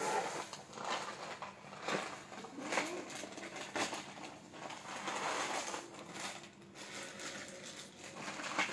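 Clear plastic packaging wrap rustling and crinkling irregularly as a plastic chair's parts are unwrapped and handled, with a few sharp knocks of hard plastic.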